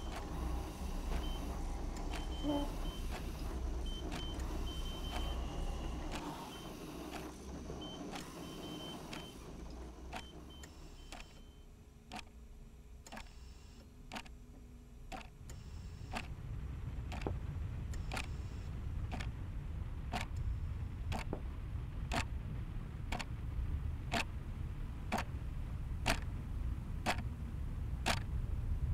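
Wall clock ticking steadily over a low, steady drone. Short high beeps come and go in the first ten seconds, and the drone swells toward the end.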